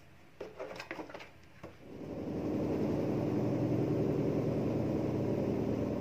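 A few light rustles and knocks as cloth is handled in a plastic basin, then from about two seconds in a Samsung top-loading washing machine running with a steady hum that swells up and holds.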